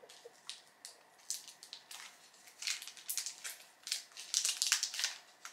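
Plastic candy-bar wrapper crinkling as it is pulled open by hand, in scattered crackles that bunch up about halfway through and again toward the end.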